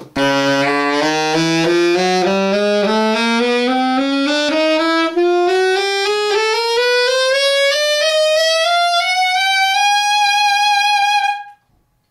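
A 1930 Martin Handcraft 'Typewriter' alto saxophone, freshly repadded and played on a Martin mouthpiece, running a slow ascending scale in small even steps from its lowest note up to the top of its range. It holds the top note briefly, then stops.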